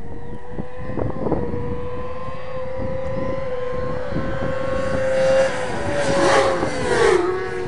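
Racing motorcycle engine held at high revs, its pitch creeping slowly upward, then getting louder from about six seconds in as a bike comes toward the trackside, with the pitch dropping in steps near the end. Wind buffets the microphone throughout.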